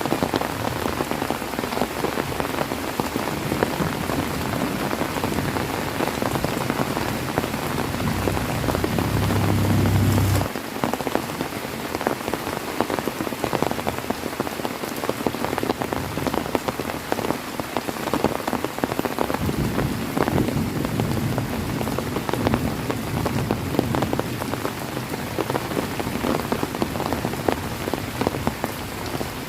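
Heavy rain falling steadily, a dense patter of drops. A low rumble swells under it and cuts off suddenly about ten seconds in, and a weaker low rumble comes back later.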